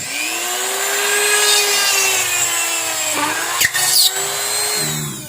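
iNGCO mini grinder, a small corded rotary tool fitted with a drill bit, running at speed setting 6 and working into wood: a steady high whine over a cutting hiss. The pitch rises as it spins up, sags briefly about three seconds in as the bit bears down, and begins to drop near the end as it comes off.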